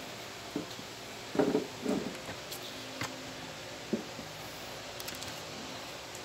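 Cardboard graphics-card box and its packing being handled: a few short, dull knocks and rustles, the loudest a pair about a second and a half in, over a steady low hum.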